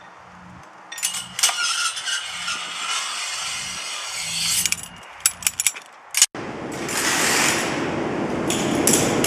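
Metal claws scraping along steel shopping carts with a ringing, rattling screech, then a quick run of sharp metallic clicks. After an abrupt cut, a steady rushing noise follows.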